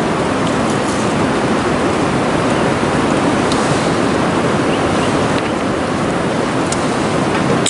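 Steady rush of flowing river water, an even noise with no rhythm, and a brief sharp click at the very end.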